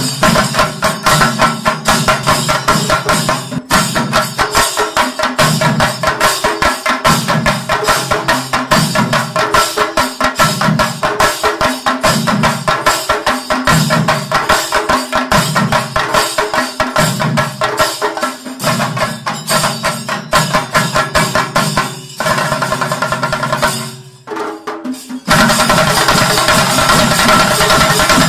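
Chende drum ensemble playing loud, fast stick rhythms with a dense run of strokes. About 22 seconds in the drumming thins and drops away for a few seconds, then comes back in full near the end.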